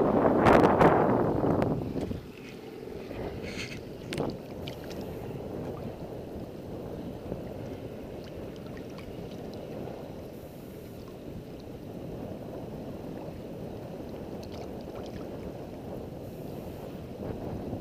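Shallow seawater lapping and sloshing close to the microphone, with heavy wind noise on the microphone for the first two seconds, then a steady, softer wash of water.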